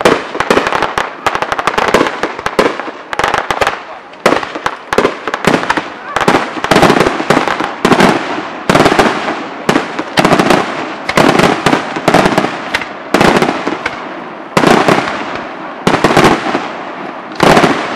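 Aerial fireworks display: a rapid, unbroken run of shell bursts and bangs, several a second, with crackling between them.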